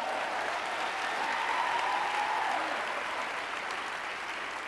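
Congregation applauding, with one held, wavering high call over it through the first half, the clapping easing slightly toward the end.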